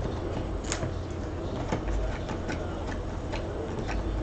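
Irregular light clicks and taps, about two or three a second, from trading cards being handled, over a low steady hum.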